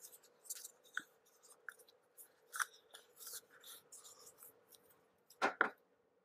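Fingers digging green Play-Doh out of a plastic Play-Doh tub: faint scrapes and light clicks of the tub, with two sharper knocks close together near the end.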